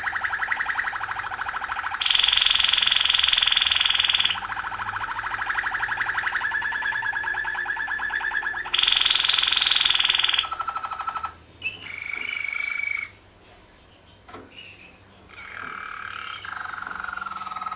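Domestic canary singing: long rolling trills, each held for a couple of seconds and then switched to another pitch, with two louder, higher rolls. About eleven seconds in the song breaks into softer separate notes and short pauses, then resumes with a trill that glides down.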